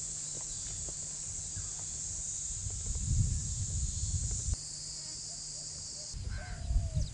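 Steady, high-pitched insect drone of the forest over a low rumble; the background shifts abruptly about four and a half and six seconds in. Near the end comes a short animal call that falls slightly in pitch.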